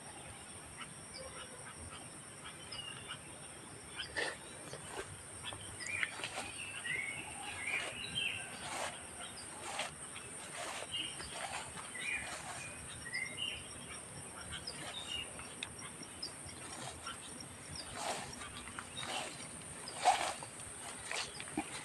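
Birds chirping in short scattered calls over a steady high-pitched buzz, with rustles and snaps of footsteps brushing through leafy undergrowth, the sharpest crackle about 20 seconds in.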